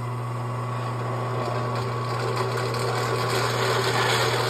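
Benchtop drill press running, its bit cutting into a chromoly steel plate: a steady motor hum under the hiss of the cut, which grows a little louder near the end.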